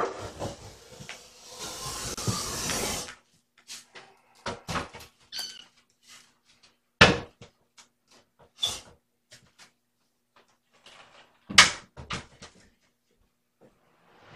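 About three seconds of rustling, then scattered sharp knocks and clicks a few seconds apart, like things being handled and set down in a small room.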